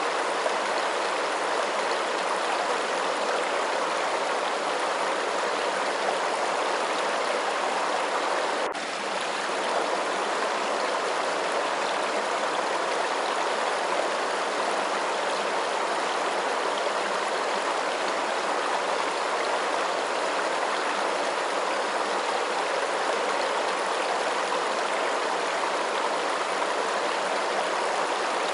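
Steady, even rush of running water, continuous and unchanging apart from a brief dip in level about nine seconds in.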